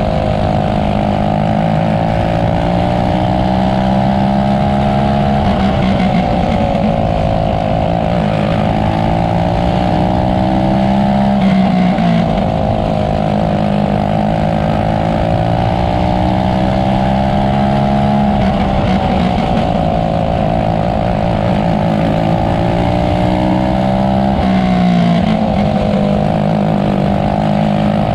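Winged outlaw kart's engine at racing speed, heard on board, running hard with its pitch dipping and climbing back about every six to seven seconds as it lifts into each turn and accelerates out.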